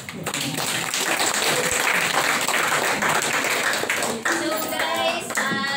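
A small audience applauding for about four seconds, with voices mixed in. The applause then dies down and speech begins.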